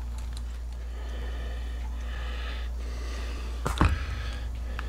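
A knife cutting into a clear ballistic gel block and hands working a bullet loose from it: faint clicks and a soft hissy rustle, then one sharp knock about three and a half seconds in. A steady low hum runs underneath.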